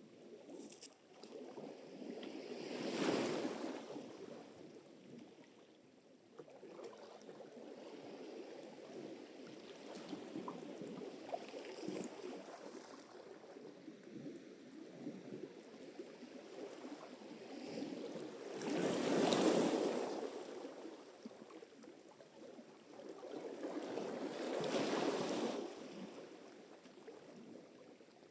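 Sea surf: waves washing in on the shore in a continuous rush. Three waves break louder, a few seconds in, about two-thirds through and near the end.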